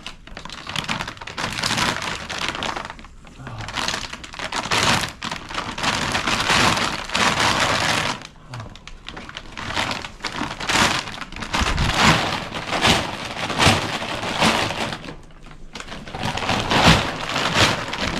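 Cracked corn and feed pouring out of a feed bag into a trough: a dense, rain-like rush of grain in long stretches, turning choppier with a few dull knocks in the second half.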